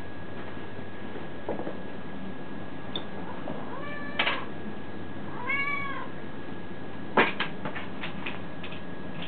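Domestic cat meowing twice, short calls that rise and fall in pitch about four and five and a half seconds in. A few sharp clicks follow near the end, the loudest of them about seven seconds in.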